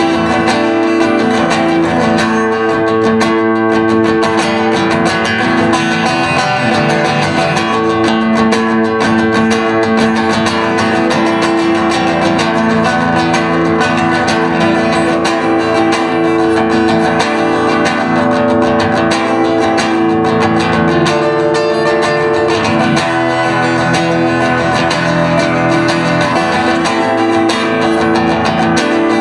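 Acoustic guitar strummed steadily, ringing chords played without a break.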